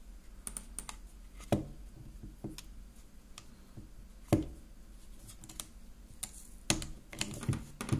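Small metal-on-polymer clicks and taps from a Sig Sauer SP2022 pistol being handled as its takedown lever is worked back into place during reassembly. Soft clicks come every second or so, with a few sharper ones at about one and a half, four and a half and near seven seconds in.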